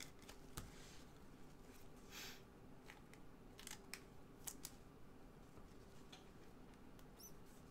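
Faint handling of trading cards and a pack in gloved hands: a few light clicks and a brief rustle about two seconds in, over near silence.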